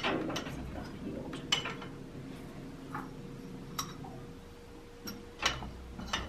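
Coffee cups being set down one at a time in a wire shelf basket: a handful of light clinks and taps, spread out with pauses between them.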